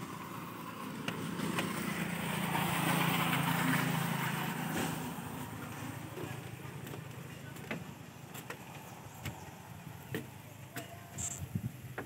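A motor vehicle passing by, its engine and road noise swelling for a few seconds and then fading away. A few light clicks and knocks are scattered through it.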